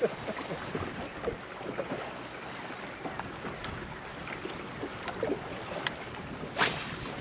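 Small wind-driven waves lapping against a bass boat's hull, with wind on the microphone and scattered small splashes and clicks. A brief louder burst comes near the end.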